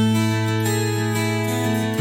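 Background music led by a strummed acoustic guitar, with held notes and a bass line.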